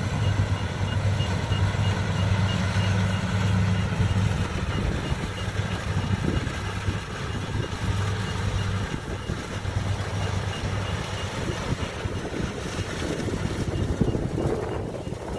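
Kubota DC-70 combine harvester's diesel engine running steadily under load while harvesting rice, with a faint, rapid, high-pitched beeping repeating throughout.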